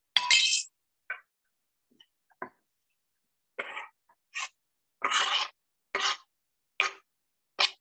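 Wooden spatula stirring and scraping fried rice with kimchi and broccoli in a stainless steel skillet: a run of short scrapes, about one and a half a second, in the second half. A short noisy scrape comes right at the start, with a few faint knocks after it.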